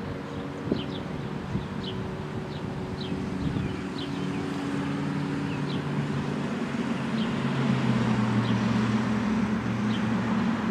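Outdoor street ambience: a vehicle engine hums low and grows louder in the second half, while a bird gives short high chirps about once a second.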